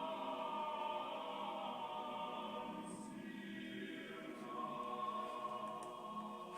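Background music with slow, sustained choral voices holding long chords.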